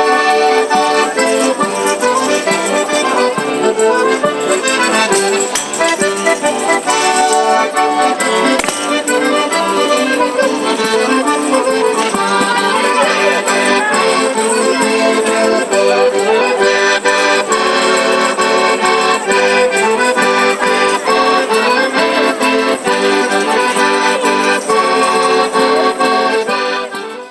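Accordion playing a traditional folk dance tune, with the jingling of frame tambourines over it; the music stops near the end.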